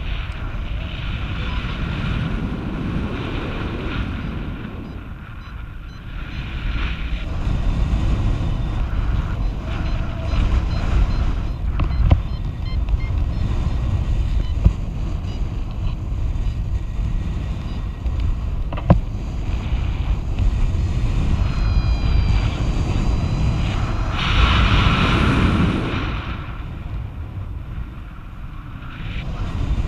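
Wind rushing over the camera microphone in paraglider flight at about 35 km/h, rising and falling, loudest about 25 seconds in. Faint high electronic beeps from the variometer come through in the middle, and there are two sharp clicks.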